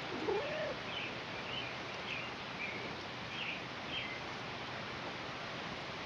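Steady outdoor background noise with small birds chirping: about six short, high chirps over the first four seconds. Right at the start a brief low sound slides up and then down in pitch, the loudest moment.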